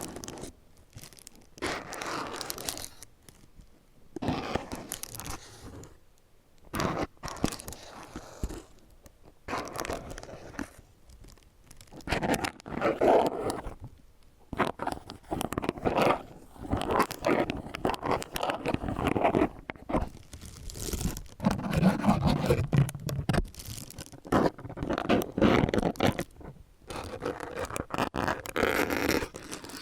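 Disposable plastic gloves crinkling, rubbing and scraping close to the microphone in quick, irregular bursts with short pauses between.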